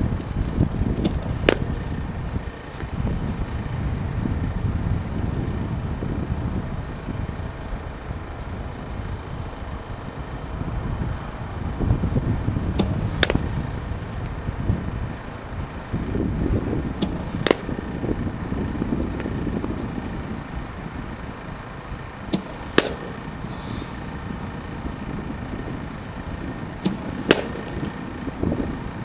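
Softball bat hitting tossed softballs in batting practice: five sharp cracks several seconds apart, each with a fainter click about half a second before it, over a steady low rumble.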